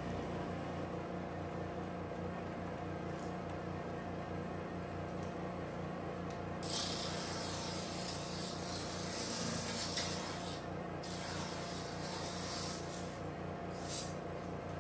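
Electric motor of a homemade conveyor drum sander running with a steady hum. From about seven seconds in to about eleven seconds, a hiss of the sanding drum abrading a board, with shorter scuffs of sanding near the end.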